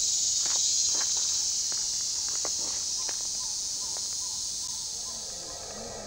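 Rainforest insect chorus: a steady, high-pitched shrill buzz that fades slightly, with scattered light clicks.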